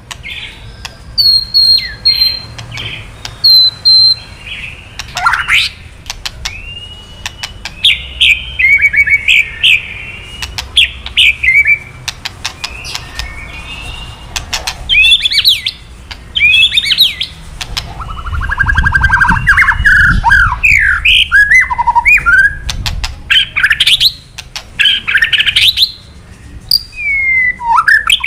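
White-rumped shama (murai batu) singing in fast, varied phrases. Sweeping whistled notes are mixed with rapid dry clicking rattles, the 'kretekan' of an agitated male that is used to provoke other male shamas. The song is densest about two-thirds of the way through.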